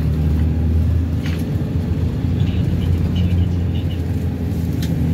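Steady low engine and road rumble heard from inside a moving Hong Kong green minibus, with a few faint high chirps around the middle and a brief click near the end.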